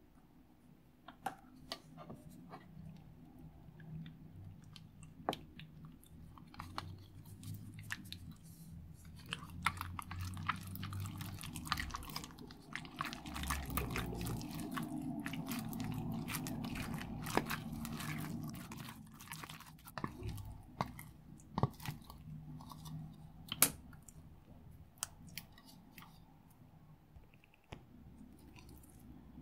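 Silver slime being stirred and folded with a silicone spatula in a plastic bowl, making sticky, squelching clicks. The mixing is busiest and loudest in the middle, then settles into slower, scattered clicks as the slime is handled near the end.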